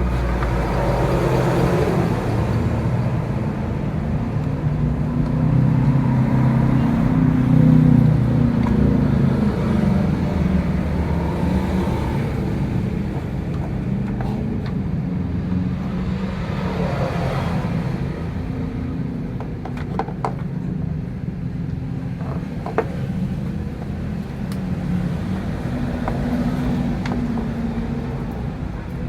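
Motor vehicle engines running steadily, swelling and easing, with a few sharp clicks about twenty seconds in.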